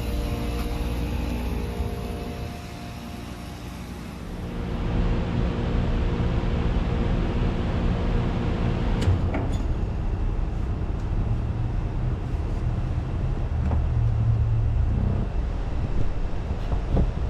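2011 Carrier Performance side-discharge heat pump outdoor unit running. Its steady hum fades away about two to three seconds in, then a steady rushing noise builds from about four to five seconds in and carries on, with a few faint clicks.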